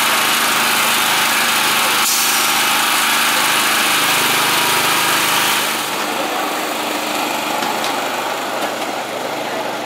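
Small petrol engine mounted in a miniature-railway locomotive's frame, running steadily. About five and a half seconds in, the sound drops to the quieter rumble of a miniature train running on its track, with a few light clicks.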